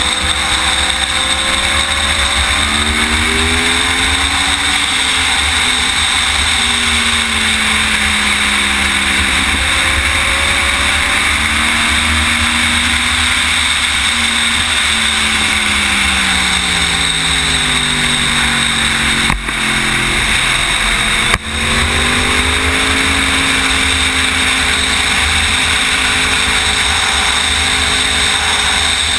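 Onboard sound of a sportbike engine at speed, its pitch climbing and dropping through shifts over a steady rush of wind. The revs sink gradually to a low point about two-thirds through, with two short clicks there, before climbing again.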